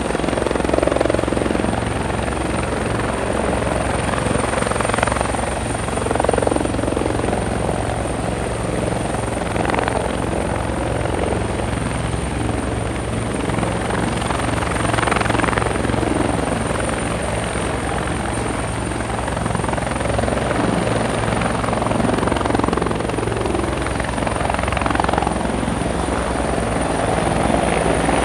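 Helicopter taking off: the rotor blades chopping fast and steadily, with a steady high whine running over it and the sound swelling and easing slightly every few seconds.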